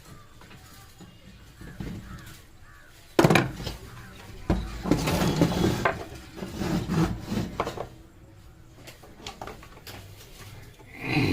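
A sharp knock about three seconds in, then several seconds of uneven rubbing and clattering handling noise.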